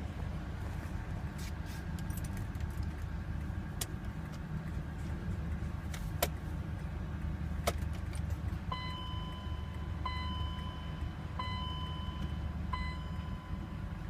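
BMW X5 dashboard warning chime sounding four times, about a second and a half apart, over a steady low rumble and a few sharp clicks.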